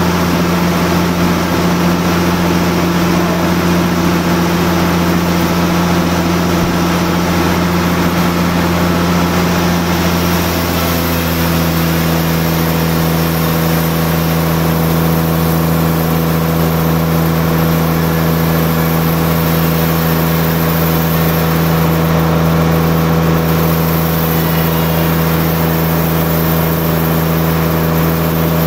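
Large band sawmill and the stationary diesel engine driving it running with a steady drone. About ten seconds in, the hum changes slightly and turns into a cleaner, steadier tone.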